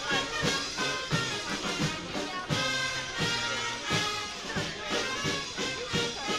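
Brass band music playing with a steady marching beat of about two beats a second.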